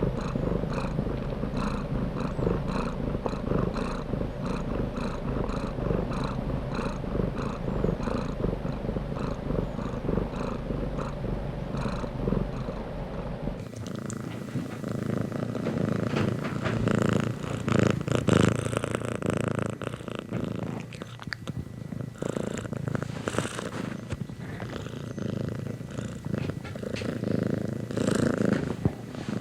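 Domestic cat purring close up, in steady pulses of about two a second. About halfway through, the sound changes abruptly to a less even purr.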